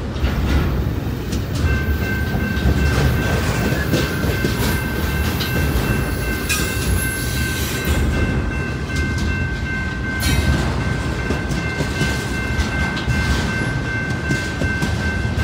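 Double-stack intermodal freight train rolling past close by: a steady rumble of wheels with clacking over the rail joints. A steady high ringing tone comes in about two seconds in and holds.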